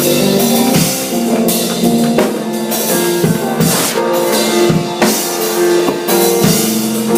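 Music from a church band: a drum kit keeps a beat of kick and snare hits under held chords.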